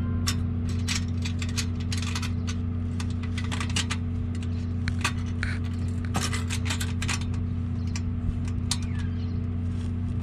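Irregular sharp metallic clicks and clinks of hand tools working the new exhaust clamp hardware on an axle-back pipe, over a steady low hum.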